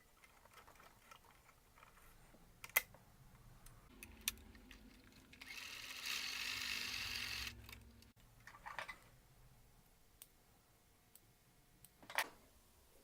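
A domestic sewing machine running at a steady speed for about two seconds in the middle, with a low motor hum just before and after. It is stitching a test seam with its bobbin loaded backwards, spinning counterclockwise. Scattered sharp clicks and taps of the machine being handled come before and after the run.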